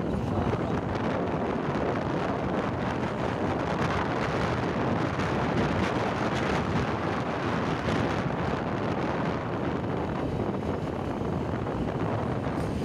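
Wind rushing over the microphone of a moving vehicle, mixed with its road noise: a steady, even rush with no distinct events.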